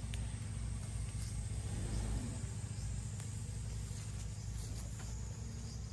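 Suzuki Jimny 4x4's engine running at low revs as it crawls slowly along a rutted dirt trail, a steady low rumble.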